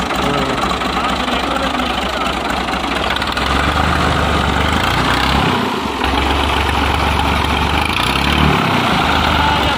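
Fiat 480 tractor's three-cylinder diesel engine idling steadily.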